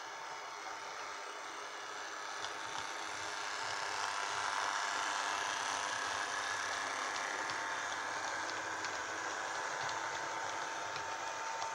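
Model railway locomotive running past: a steady electric motor whine with light clicks of wheels over rail joints, growing louder about three to four seconds in as it nears.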